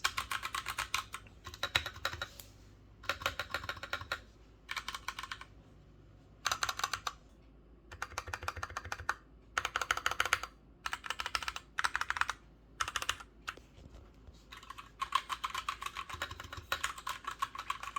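Typing on a Royal Kludge Pro 100 mechanical keyboard fitted with HyperX Pudding keycaps: quick runs of key presses in about ten short bursts with brief pauses between them, the last run longer, near the end.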